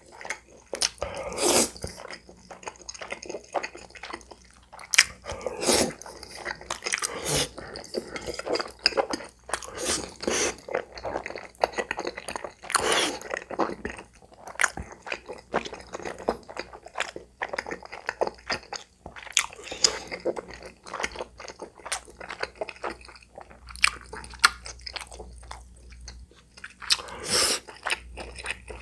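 Close-miked mouth sounds of eating cream tteokbokki: chewy rice cakes and stretchy cheese being bitten and chewed, with irregular wet smacks and clicks throughout.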